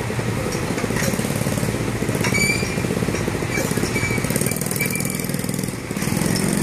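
An engine running steadily with a fast low pulsing, and a short high chirp a little over two seconds in.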